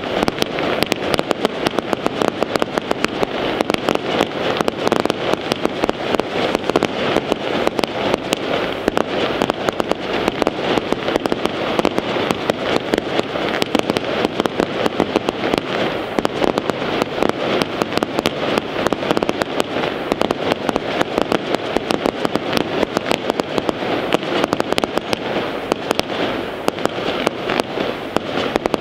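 Fireworks display: a continuous rapid barrage of small aerial bursts, many pops and bangs a second, with no let-up.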